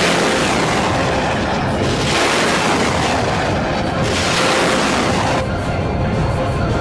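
Loud, dense rushing noise of a carrier fighter jet's engines as it taxis on the deck, swelling and easing every second or two, its high hiss dropping away about five seconds in.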